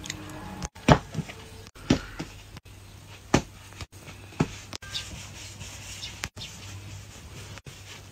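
Bread dough being pressed and rounded by hand on a wooden board: a few soft, sharp knocks and thumps scattered through, over a faint steady hum.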